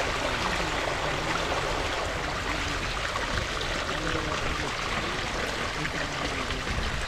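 Water gushing out of a pipe into a shallow stone-lined stream channel, a steady rushing and splashing flow.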